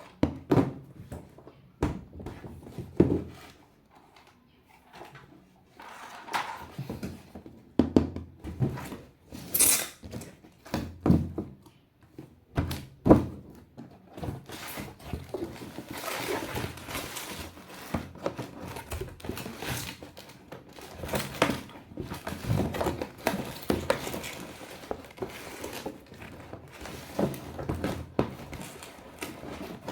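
Plastic toys being handled: scattered knocks and clunks with short pauses, then from about halfway a busier, steadier clatter with frequent clicks.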